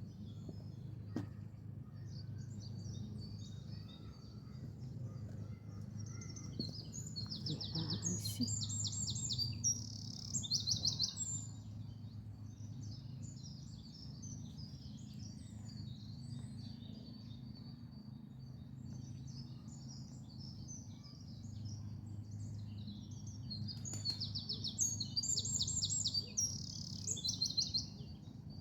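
Wild songbirds singing. A loud song of rapid trilled phrases comes twice, about 8 seconds in and again about 24 seconds in, over softer chirping from other birds and a steady low rumble.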